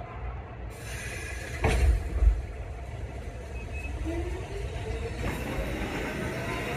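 A New York City Subway train running in on the tracks, a steady rumble of wheels on rail with a motor whine rising in pitch from about four seconds in. A couple of loud thumps come about two seconds in.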